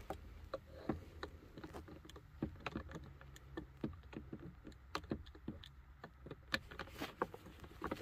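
Faint, irregular small clicks and taps of hand work on a car's plastic steering column cover as its screws are run back in.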